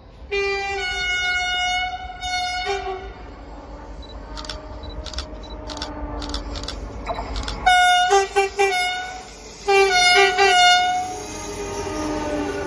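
Horn of Renfe class 335 (Vossloh Euro 4000) diesel locomotive 335.012 on an approaching freight train: one long blast of about three seconds, then two groups of quick short blasts. The rumble of the locomotive and wagons grows louder near the end as the train draws close.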